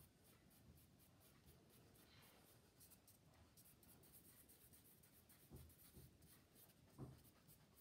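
Faint scratching of willow charcoal sticks on drawing paper, many quick short strokes, with two soft knocks near the end.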